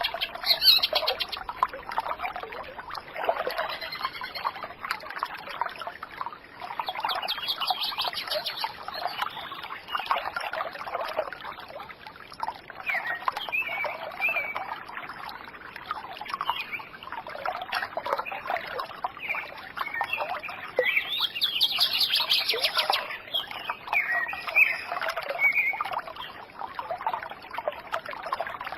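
A chorus of many birds chirping and calling over one another without pause, dense overlapping chirps with some short gliding whistles.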